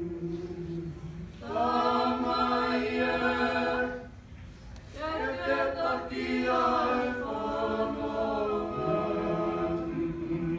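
A group of men and women singing unaccompanied in long held notes. A loud phrase breaks off about four seconds in, and after a short pause a second phrase starts and then carries on more softly.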